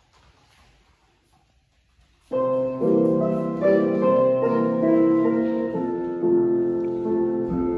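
Near silence, then solo piano music for a ballet exercise starts about two seconds in and plays on steadily.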